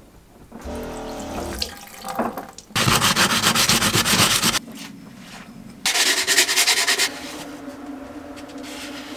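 Sandpaper rubbed in fast back-and-forth strokes on the corroded metal end cover of a boat engine's raw-water impeller pump, to clean off old gasket gunk; the sanding comes in two loud spells. Water running at a sink at the start.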